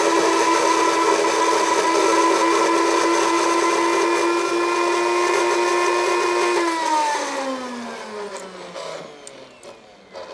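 High-speed kitchen blender running at a steady pitch, pureeing softened cooked cherries. About two-thirds of the way through it is switched off and the motor winds down with a falling whine.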